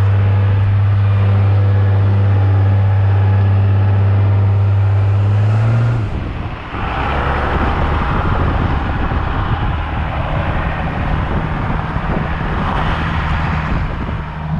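Dodge 2500 pickup's 12-valve Cummins diesel under way on a test drive, with a steady engine drone. About six seconds in the drone drops away and settles lower, with more road and wind noise swelling and fading twice. There is no popping from the front end, where the worn wheel hub bearing has just been replaced.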